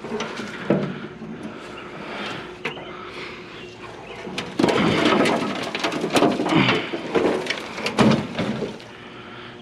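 Metal scrap being handled and moved through a brush pile: scattered knocks, clanks and scraping with rustling. The loudest stretch is a little after halfway through.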